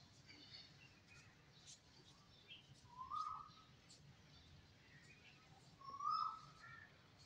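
A kitten mewing twice, short high calls about three seconds in and again near six seconds, with faint bird chirps in the background.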